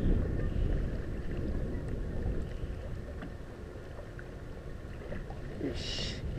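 Wind rumbling on an open-air microphone, strongest at first and easing off, with a few faint small ticks. About six seconds in there is a short rustle as a gloved hand reaches for the fishing rod.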